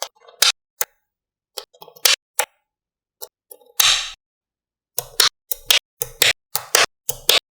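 Sharp clicks of small magnetic balls snapping together, scattered at first, then coming in a quick run of about three a second from about five seconds in.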